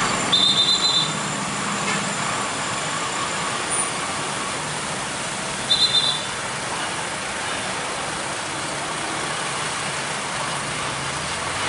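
Loaded diesel cargo trucks running at low speed as they cross a railway level crossing, over steady road traffic noise. Two short bursts of rapid high-pitched beeping, one just after the start and one about six seconds in.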